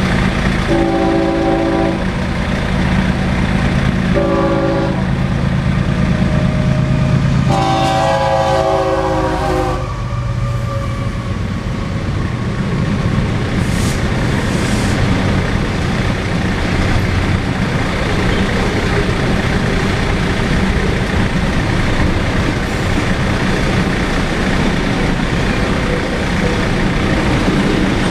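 Freight train horn from the lead GE ES44C4 diesel locomotive sounding three blasts, the third and longest ending about ten seconds in, over the drone of the locomotives' diesel engines. Then the steady rumble of the freight train rolling past the crossing.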